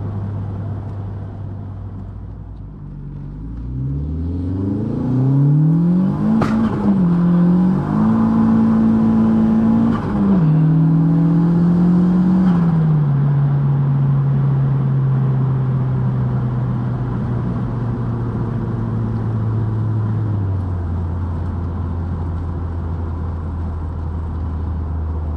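Turbocharged 1.8T 20-valve four-cylinder engine of a Mk2 Golf under a hard full-throttle pull: the revs climb steeply, a sharp bang comes about six and a half seconds in, and a faint high whistle rides over the pull. The pitch then steps down and up several times before the engine settles to a steady cruise, dropping lower again near the end.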